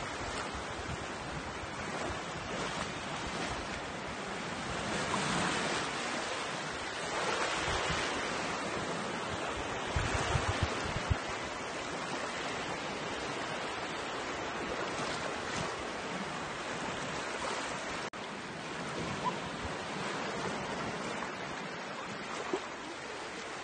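Small waves washing up and drawing back over a sandy shore, the surf swelling and easing in a steady hiss. About ten seconds in, a few gusts of wind buffet the microphone.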